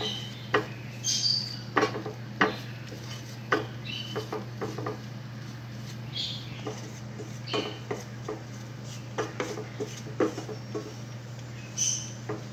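Wooden spatula scraping and knocking against a stainless steel pan while stirring a crumbly flour-and-butter roux for béchamel: irregular clicks and taps with short high squeaks. A steady low hum runs underneath.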